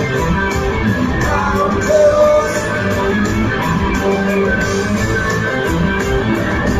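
A live rock band playing loud, electric guitars over drums, heard from far back in an arena through a phone microphone. A single guitar note bends about two seconds in.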